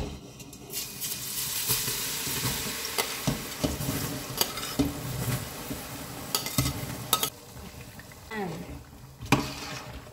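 Chopped garlic sizzling as it is fried in a pot of hot cooking oil, with a utensil stirring and knocking against the pot now and then. The sizzle starts about a second in and eases somewhat after about seven seconds.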